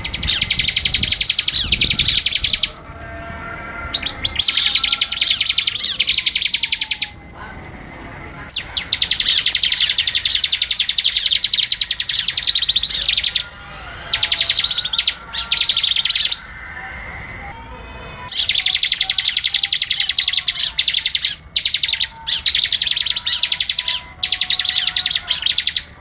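Bar-winged prinia (ciblek) singing: long runs of rapid repeated high notes, each lasting a few seconds, broken by short pauses.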